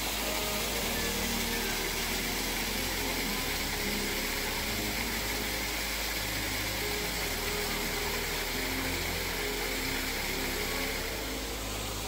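Steady rushing roar of a waterfall, with quiet background music of short held notes underneath.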